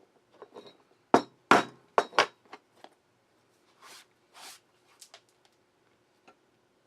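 Hand tools working leather on a workbench: four sharp knocks in quick succession, then two short scraping sounds and a few light ticks.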